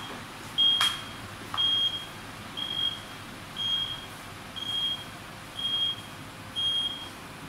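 Power tailgate warning beeper sounding a short, high-pitched beep about once a second while the vacuum-type power tailgate on a Nissan X-Trail lifts open. A sharp click comes about a second in.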